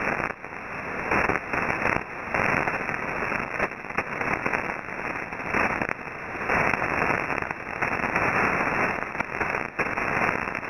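Shortwave static from a receiver in sideband mode: a steady rushing hiss of band noise, cut off above about 3 kHz, swelling and fading every second or so.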